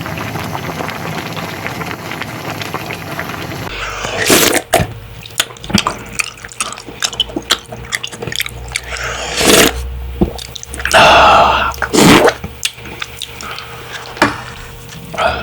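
A pot of ramen with oysters bubbling steadily for about four seconds, then a run of irregular clicks and several loud wet bursts of liquid and food being handled.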